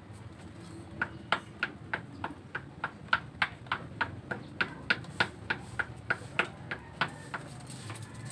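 A regular series of about twenty sharp clicks, roughly three a second, starting about a second in and stopping near the end.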